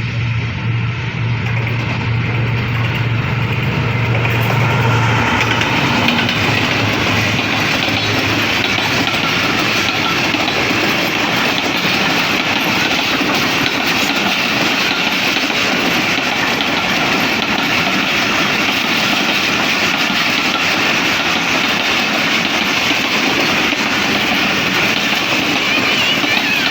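A train running through on the track: a loud, steady rush and clatter of wheels on rails, with faint high squealing lines over it. A low hum is heard for the first five seconds or so, then fades out.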